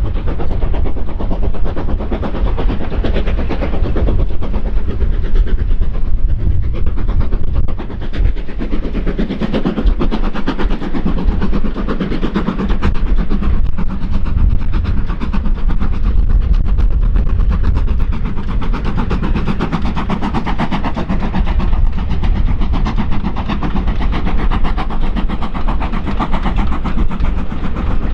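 Steam-hauled train running past, a loud steady sound of locomotive and carriages on the track.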